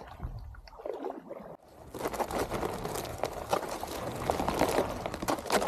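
Thin river ice crunching and crackling as a stand-up paddleboard is pushed through it: a dense run of sharp cracks and clicks that starts suddenly about one and a half seconds in, after a quieter stretch.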